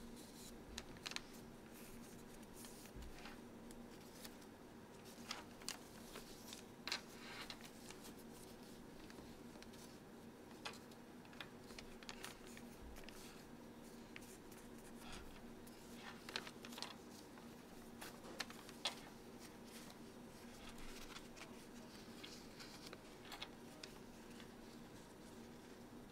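Faint, irregular rustling and crisp little ticks of origami paper being folded and creased by hand, over a low steady hum.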